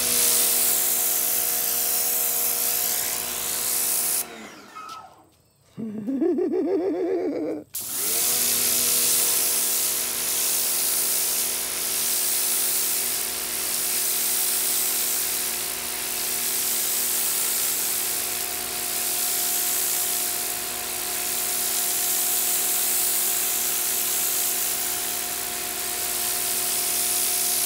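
Sun Joe SPX2688-MAX electric pressure washer running under load: a steady motor and pump hum under the hiss of the water jet on concrete. It cuts out about four seconds in, runs again from about eight seconds in, and stops near the end.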